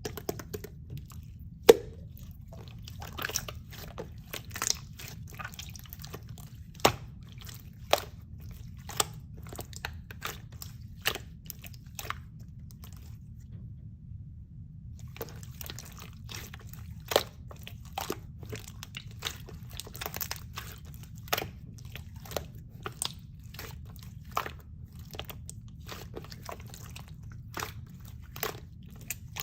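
Slime being squeezed and pressed by hand, giving irregular sharp pops and crackling clicks, with a break of a few seconds around the middle, over a steady low hum.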